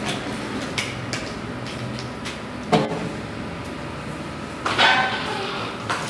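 A few knocks and clatters of household objects being handled and set down on a counter, the loudest clatter, with a short ring, about five seconds in.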